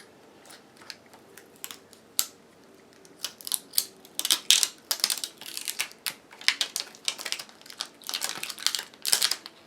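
Fingernails picking and scratching at the plastic release liner on a replacement laptop battery's adhesive strips, giving irregular clicks and crinkling that get busier after about three seconds. The liner is stuck and won't release.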